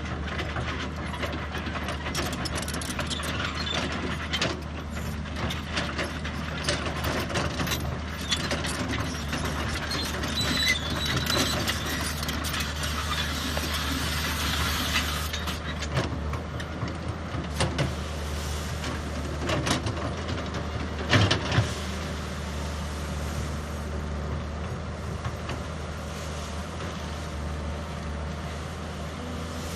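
Heavy construction machine, likely the excavator, working: a steady low engine hum throughout, with repeated sharp metallic clanks and knocks on top. The loudest knocks come in a quick cluster about two thirds of the way through.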